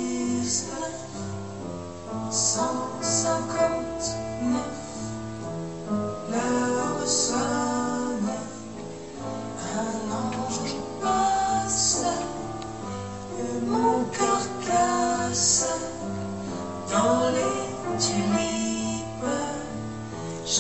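Music: a woman singing a chanson with instrumental accompaniment.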